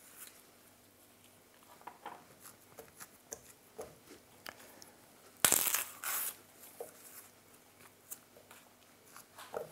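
A banana being peeled and broken into pieces by hand over a plastic blender jar: soft tearing of the peel and small knocks and plops as pieces drop into the jar, with a louder noise about five and a half seconds in.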